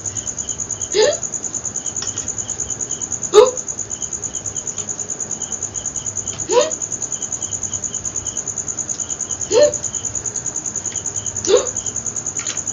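A woman hiccuping five times, a few seconds apart, each hiccup a short sharp gulp that rises in pitch. Crickets chirp steadily behind it with a fast, high-pitched pulsing.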